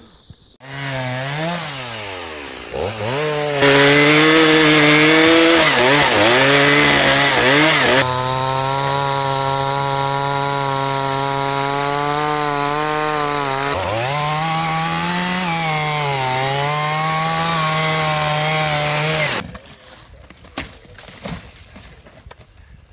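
Two-stroke chainsaw revving with the throttle blipped up and down, then cutting through a fallen log at full throttle, loudest in the first few seconds of the cut. Its pitch dips briefly about fourteen seconds in, picks up again, and the saw cuts off suddenly about nineteen seconds in.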